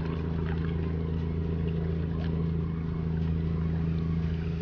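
A steady low mechanical hum at one even pitch, holding unchanged throughout.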